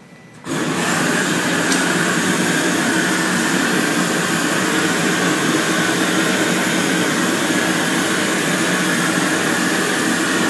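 Glassblowing gas torch coming on about half a second in, then a loud, steady hiss of the flame heating a large spun glass platter.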